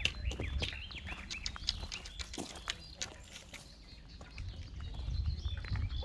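Small birds chirping repeatedly in woodland, over irregular clicks and scuffs of footsteps on a trail and a steady low rumble.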